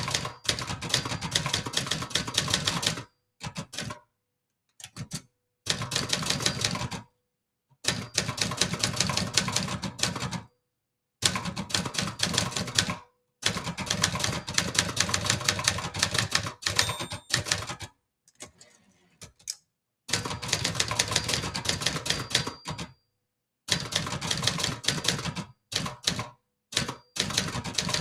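Brother Charger 11 manual portable typewriter being typed on: fast runs of key and typebar strikes in bursts of one to three seconds, broken by short pauses.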